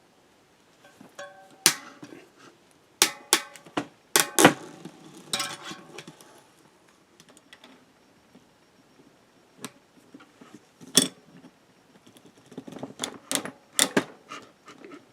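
Metal clinks and knocks from a cassette lockring tool and an adjustable wrench being handled on a bicycle cassette, a few of them ringing briefly. A quicker run of small clicks comes near the end.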